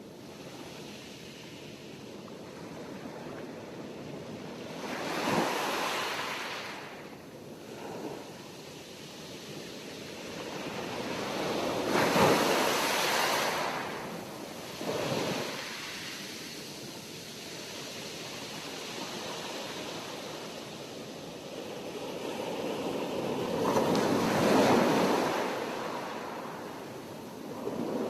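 Sea waves surging and breaking, with three larger swells about five, twelve and twenty-four seconds in and smaller washes between them.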